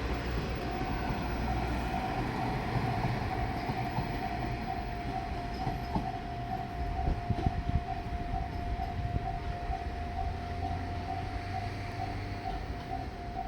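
A level crossing warning bell starts about half a second in, an evenly repeating electronic ding a little under twice a second, over the low rumble of a diesel railcar's engine. A few sharp clanks come about six to seven and a half seconds in.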